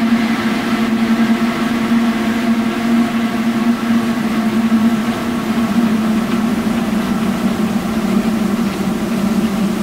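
Experimental drone-noise track: a loud, steady drone of layered sustained tones, strongest low in pitch, under a hissing wash of noise, unchanging throughout.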